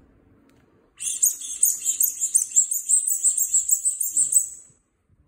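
A child's handheld toy sounding a rapid run of high-pitched pulses, about five a second, starting about a second in and stopping after nearly four seconds.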